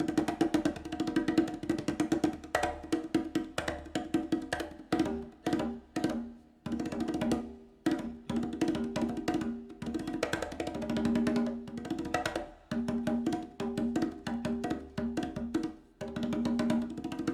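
Instrumental music played back through Elfton Vegas II four-way hi-fi loudspeakers and picked up in the room: rapid percussive strikes with pitched notes, broken by a few brief pauses.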